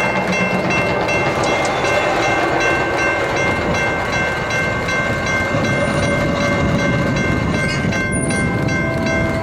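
Heavy Union Pacific grain train hauled by GE AC diesel locomotives, approaching but not yet close. A steady rumble carries several high, held tones over it, and a lower tone comes in near the end.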